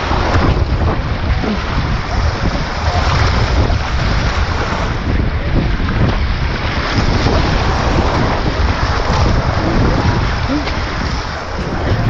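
Whitewater rushing and splashing right around a helmet-mounted camera riding at water level in a river rapid, with heavy buffeting rumble on the microphone.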